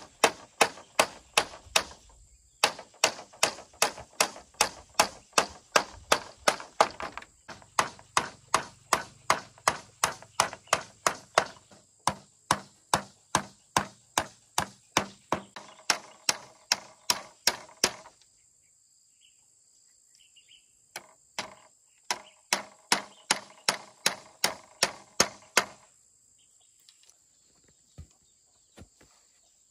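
A hand tool striking over and over in a fast, even rhythm, about three blows a second. The blows come in long runs with a short break about two seconds in and a longer one past the middle, then thin out to a few scattered strikes near the end. The later blows ring with a tone.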